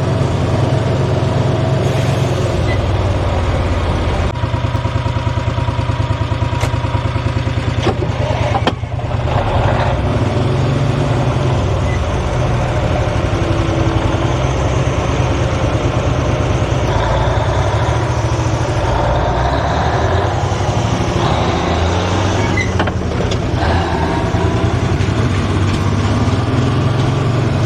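Truck engine running as the truck drives along, a steady low rumble with a brief dip about nine seconds in.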